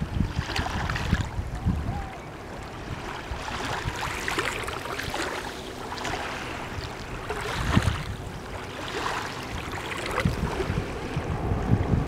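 Small waves lapping and washing onto a sandy beach at a calm sea, the wash swelling every few seconds, with wind buffeting the microphone.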